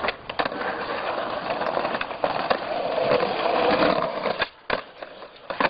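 Skateboard wheels rolling over rough concrete, broken by a few sharp clacks of the board, with the rolling dropping away about four and a half seconds in.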